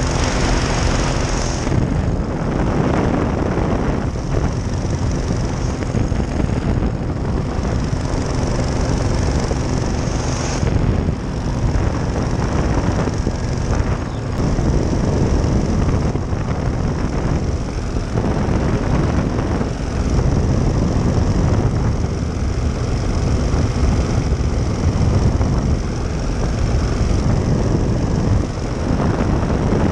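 Ultralight powered parachute's engine and propeller running steadily in flight, a continuous drone mixed with a loud rushing noise.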